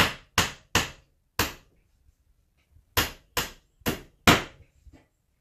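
Hammer driving nails into wooden patch boards: four quick blows, a pause of about a second and a half, then four more and a light tap.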